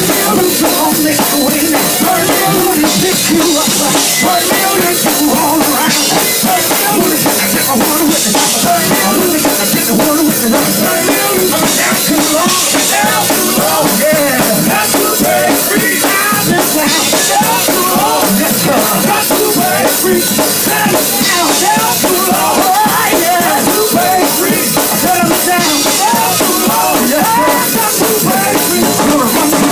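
Live gospel group performing: men singing into microphones over a drum kit and band, loud and continuous.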